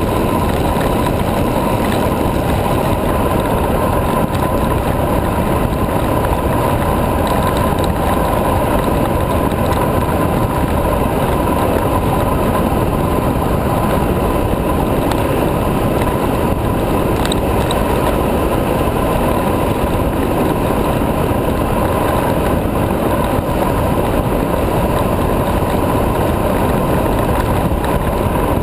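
Steady, loud rush of wind over a camera mounted low on an M5 carbon high racer recumbent bicycle descending at speed (about 53 km/h), mixed with the tyres' roll on asphalt. A steady mid-pitched tone runs through the noise.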